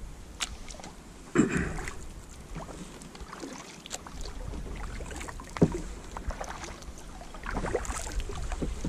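Kayak paddle strokes in calm lake water: the blade dipping and pulling with a few splashes a couple of seconds apart, and drips and small knocks between them.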